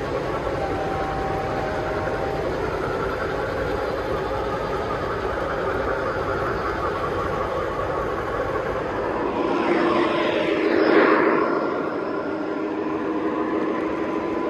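Three-rail model trains running on a layout: a steady rumble of wheels and motors on the track, with faint steady tones over it. The sound swells louder and brighter about ten seconds in, peaking near eleven seconds, then settles back.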